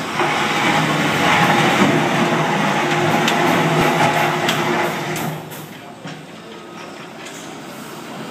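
John Deere 7330 tractor's six-cylinder diesel engine running hard under throttle. It eases off about five seconds in to a lower, steadier running sound.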